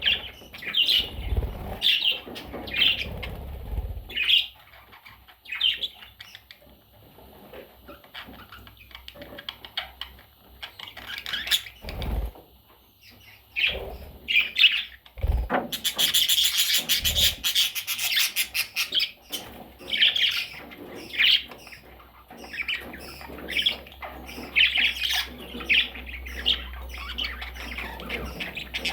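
Budgerigars chirping and squawking in short repeated calls, with a couple of soft thumps and a dense flurry of rustling noise about halfway through.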